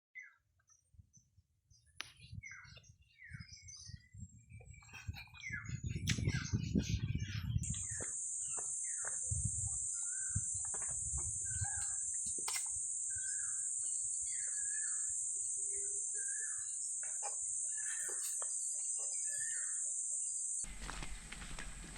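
Small birds chirping, many short quick calls repeated through the clip. From about a third of the way in, a steady high-pitched buzz sounds with them and stops abruptly near the end.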